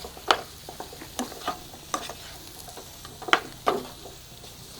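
Spoon scraping and knocking in a pan, a few irregular strokes, as chicken pieces are mixed through thick biryani masala, with a faint sizzle underneath.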